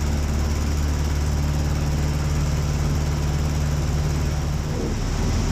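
Aeronca Chief light airplane's engine and propeller droning steadily in flight. About four and a half seconds in, the engine note shifts to a lower, different drone.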